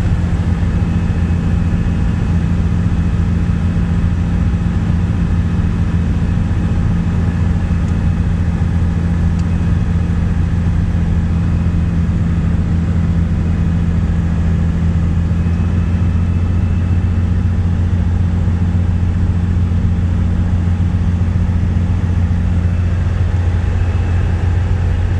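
Cessna 210's six-cylinder piston engine and propeller running steadily: a constant, loud, low drone with no change in pitch.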